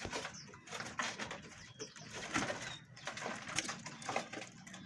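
Caged birds calling and chirping, with many short sharp clicks scattered through.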